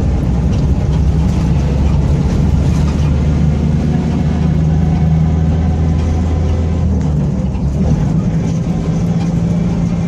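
Mercedes-Benz OF-1722M bus's diesel engine and drivetrain running under way, with the growl of its worn cardan drive shaft. The low drone holds a steady pitch, then drops about seven and a half seconds in.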